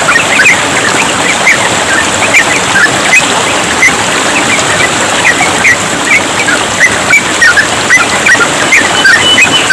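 Yellow-vented bulbuls chirping in quick, overlapping runs of short notes over a steady trickle of running water.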